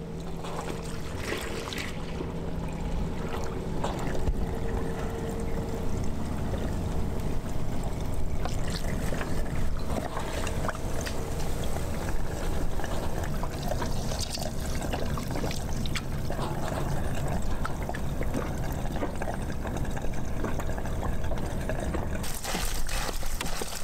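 Diesel fuel pouring steadily from a plastic jerry can into a fabric filter sock in a funnel, a continuous splashing pour as the fuel is pre-filtered before it goes into the boat's tank.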